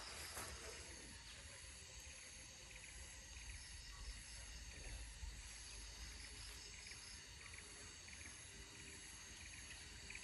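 Faint rainforest ambience: insects buzzing in steady high tones and chirping in short, evenly repeated pulses, over a low rumble.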